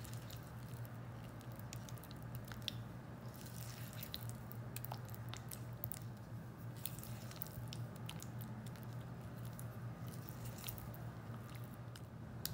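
Silicone spatula stirring egg yolks into thick yogurt in a glass bowl: soft wet squishing with scattered small clicks, over a steady low hum.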